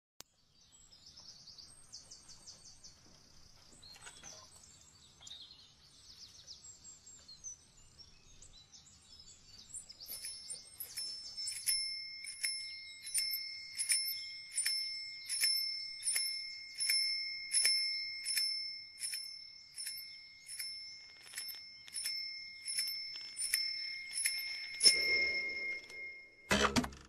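A dome-shaped metal bell struck over and over, about two strikes a second, each stroke ringing on, starting about ten seconds in. Before it there is faint bird chirping, and a loud thump comes just before the end.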